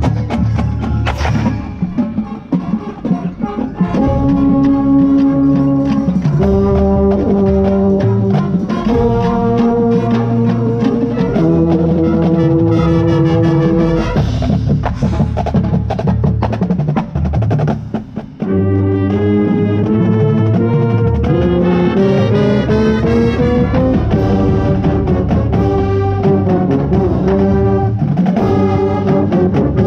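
Drum corps horn line playing sustained brass chords and moving lines, with a euphonium close to the microphone, over drumline percussion. The first few seconds are mostly percussion, with the brass coming in about four seconds in and a brief break a little past the middle.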